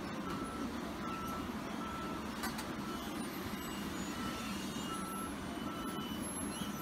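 John Deere tracked excavator with its diesel engine running and its travel alarm beeping, a single steady tone repeating a little over once a second while the machine tracks.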